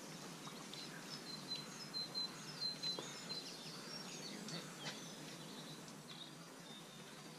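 Small birds chirping and singing over a steady outdoor background hiss, with a run of short, high, repeated notes in the first few seconds. A couple of faint knocks come about three and five seconds in.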